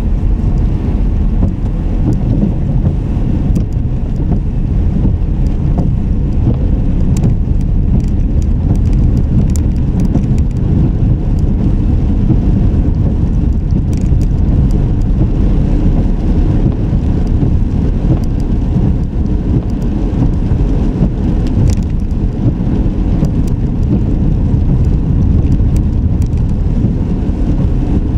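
Steady low rumble of a car driving, its road and engine noise, with faint scattered ticks.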